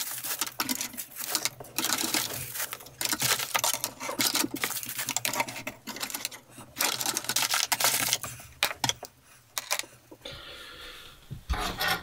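Clear plastic wrapping crinkling and rustling as T5 LED grow-light tubes are unwrapped, with clicks and knocks as the tubes and their cable connectors are set down on a painted wooden frame. It grows quieter about ten seconds in.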